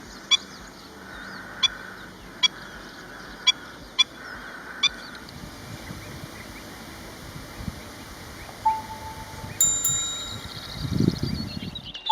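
A series of six sharp clicks in the first five seconds, then ringing chime-like tones from about nine seconds in.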